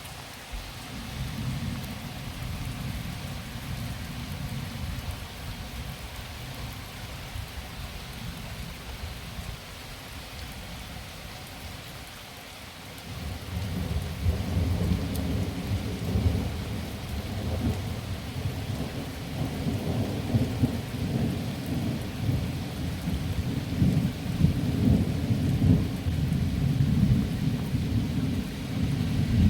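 Thunderstorm: steady rain hissing, with low thunder rumbling about a second in, then a long, louder rumble of thunder starting about halfway and building toward the end.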